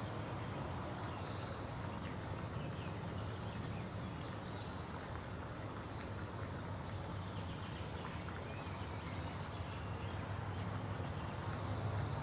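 Background ambience: short, faint, high chirps from small birds several times, with a longer chirping phrase about eight and a half seconds in, over a steady low rumble.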